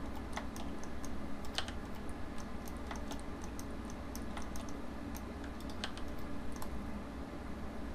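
Computer keyboard and mouse clicking irregularly as hotkeys are pressed and edits made, over a steady low hum.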